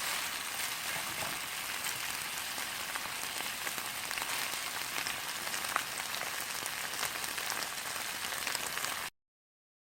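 Vienna sausages and vegetables sizzling and crackling in a frying pan as they stir-fry. The sizzle cuts off suddenly about nine seconds in.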